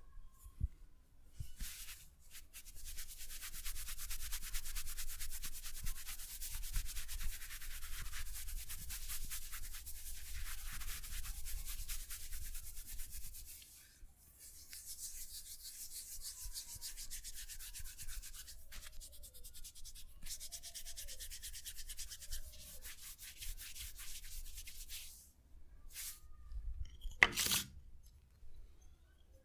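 A masseur's hands rubbing briskly during a body massage: a dry, dense friction hiss that runs in long stretches with a couple of short breaks, then one sharp knock near the end.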